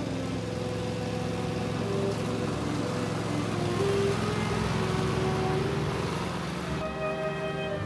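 Cub Cadet XT1 46-inch riding lawn mower running and cutting grass as it passes close by, loudest about four seconds in and falling off near the end as it moves away. Soft background music underneath.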